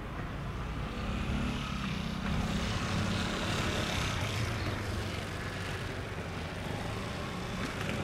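Distant steady drone of an ATR 72-600's twin Pratt & Whitney PW127M turboprop engines climbing away after takeoff, a little louder about a second in and easing slightly in the second half.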